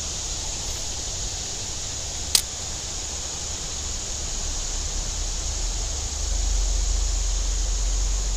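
Steady hiss of a flowing creek with low wind rumble on the microphone, the rumble growing louder about six seconds in. A single sharp click sounds about two and a half seconds in.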